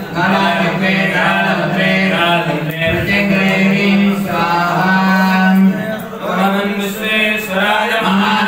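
Male voices chanting Vedic mantras on a steady held pitch, with short breaks for breath.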